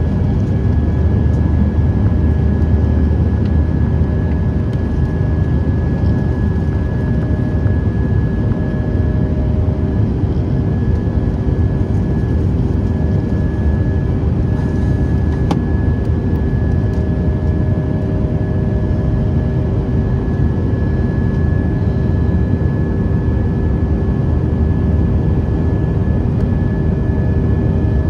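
Airbus A319 jet engines and rushing air heard as a steady, loud drone, with a few faint steady tones running through it.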